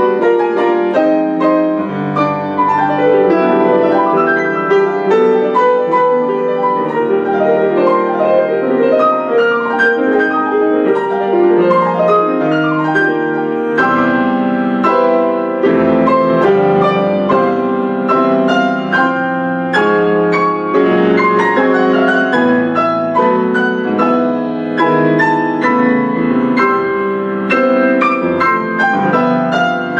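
Solo grand piano playing a fast classical passage of quick runs and chords, steady in loudness with notes following one another closely throughout.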